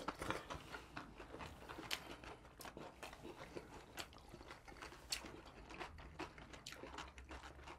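People chewing and biting into pizza slices, with faint, irregular crunches and mouth clicks.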